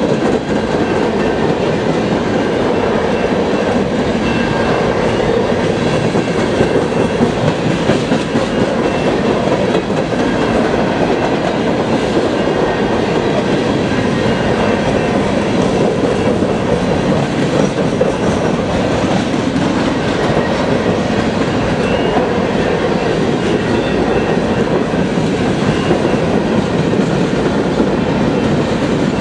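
Long CN freight train of empty centerbeam flatcars rolling past at track side: a steady, loud rumble and clatter of steel wheels on the rails.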